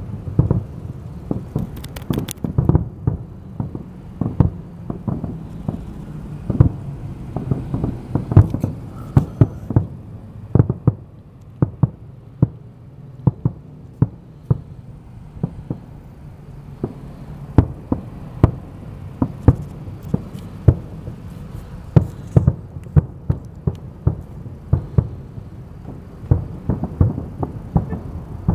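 Aerial fireworks shells bursting in a fast, irregular run of sharp bangs, several a second, over a steady low rumble.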